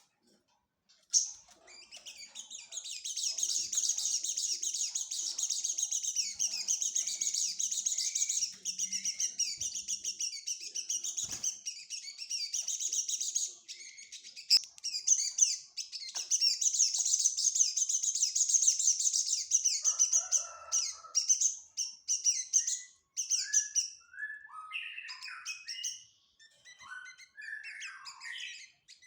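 A small songbird singing: a long, fast, high-pitched run of twittering chirps, then a string of separate sliding whistled notes near the end.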